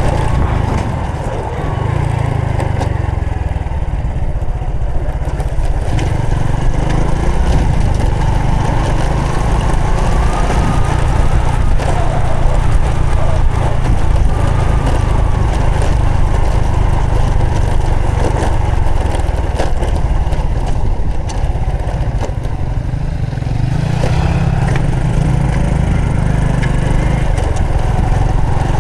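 Honda Supra X 125 FI single-cylinder four-stroke motorcycle engine running under way, its pitch dropping and rising as the rider eases off and opens the throttle.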